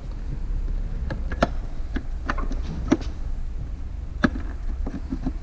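A series of sharp plastic clicks and light knocks, about seven in all, as a reverse-light bulb socket is twisted and seated in a plastic tail light housing. A steady low rumble runs underneath.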